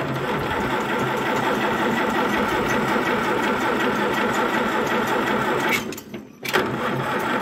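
1950 Allis Chalmers WD's electric starter cranking its four-cylinder gasoline engine in a steady rhythmic churn for about six seconds without it catching, then a second short crank near the end.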